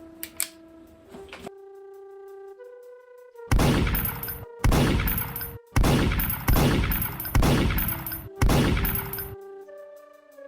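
Pistol gunshot sound effects standing in for the Lego pistol firing: about six shots roughly a second apart, each with a long decaying tail, over background music.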